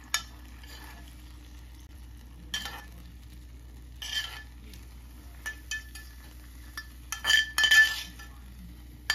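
A metal spoon scraping and clinking against a cast-iron skillet as hot oil and fried aromatics are spooned out over sliced pork, with some sizzling. The scrapes come in short bursts, with the loudest two near the end.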